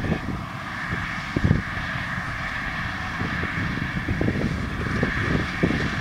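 Fendt 942 tractor and Massey Ferguson 2290 large square baler running steadily while baling, a steady drone with a high hum, broken by irregular low thumps.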